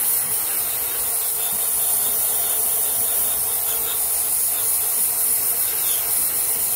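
Aerosol freeze spray hissing steadily from the can onto the steering stem of a BMW F800GS's lower triple clamp, chilling it so the new steering head bearing can be pushed on.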